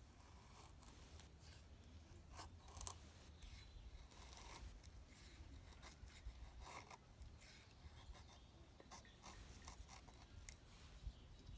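Faint, irregular cutting and scraping strokes of hand tinder preparation, a blade or shears working through wood or twine, with one sharper stroke about three seconds in.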